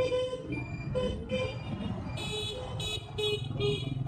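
Vehicle horn giving a run of four short beeps about halfway through, over the steady noise of street traffic.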